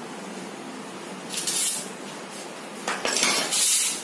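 A hand mixing dry flour in a stainless steel bowl, scraping and rustling against the metal. There are two short bursts, about a second and a half in and a louder one near the end.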